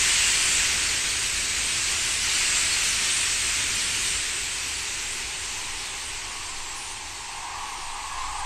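Rushing hiss of wingbeats from a large murmurating flock of birds wheeling overhead. The hiss is steady and fades gradually as the flock draws away.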